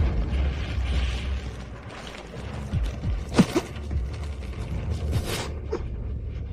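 Dramatic sound effects over a steady low rumble, with a few short, sharp hits that have gliding pitches. The loudest comes about three and a half seconds in, and another about five seconds in.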